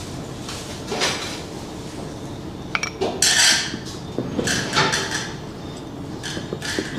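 Small wire whisk scraping and clinking against a bowl as it stirs grape seed oil into melted dark chocolate, in uneven strokes, the loudest scrape about halfway through.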